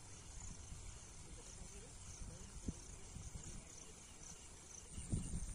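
Insects chirping in short, repeated high-pitched pulses, over a low rumbling noise that grows louder near the end.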